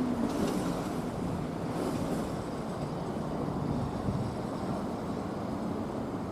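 Steady low rumble of a train moving slowly through the depot yard, mixed with wind on the microphone. A faint motor hum dies away in the first half-second.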